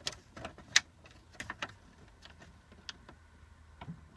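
Irregular light metallic clicks and taps as a small washer is handled and fitted onto the dashboard fuel tank toggle switch, one sharper click a bit under a second in.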